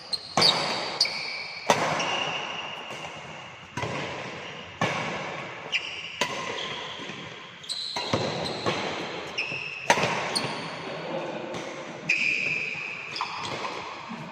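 Badminton rally with a Li-Ning Windstorm 72 racket: sharp smacks of racket strings on the shuttlecock about once a second, each ringing on in the hall, with short high squeaks between the hits.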